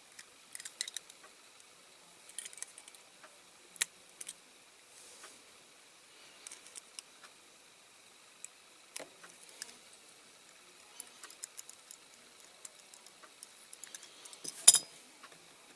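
Scattered light metallic clicks and taps of a diecast toy car's small metal doors and body being handled and worked into position, with a sharper click near the end.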